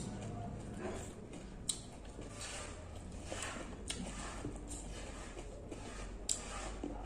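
Grapes being plucked from the bunch and chewed close to the microphone: soft wet chewing and mouth sounds, with a few sharp clicks.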